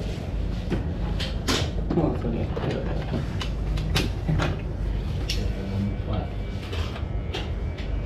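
Barbershop sounds: a handful of sharp clicks and knocks over a steady low rumble, with voices in the background.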